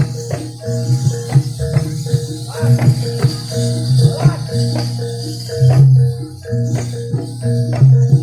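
Javanese gamelan music for a jaranan dance: fast drum strokes over repeating metal-keyed tones and deep gong-like notes, with a steady high jingling.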